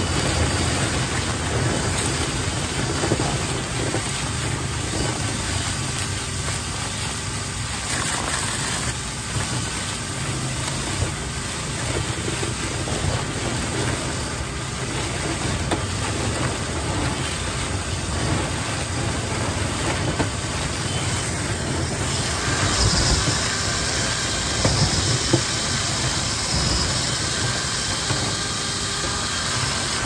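Cordless drill spinning a flexible rotary brush rod inside a badly clogged dryer vent duct, the rod rattling and scraping in the duct, with a steady rushing noise and a few small knocks.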